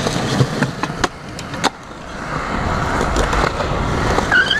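Skateboard wheels rolling on smooth skatepark concrete, with a couple of sharp clacks about one and one and a half seconds in and the rolling growing louder toward the middle. A brief high squeak near the end.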